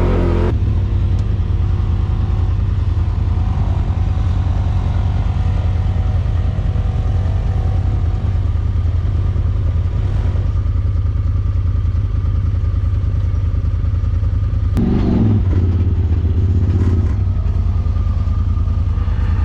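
Side-by-side UTV engine running steadily at low revs, pulling up a steep rocky hill. About 15 seconds in there is a sharp knock and a louder stretch lasting a couple of seconds.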